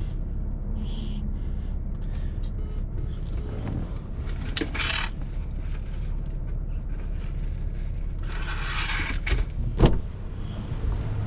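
Steady low hum of a car heard from inside the cabin, with brief rustling of handling about five seconds in and a longer rustle around eight to nine seconds. Two sharp knocks follow just after, the second one the loudest sound here.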